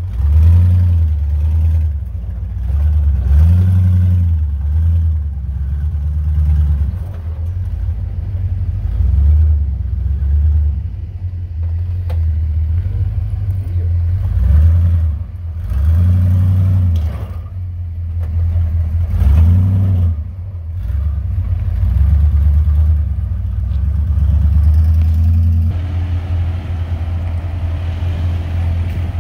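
Dodge Ramcharger's engine revving in repeated surges as the truck crawls over boulders, low and uneven. About three seconds before the end the sound changes to a steadier engine run.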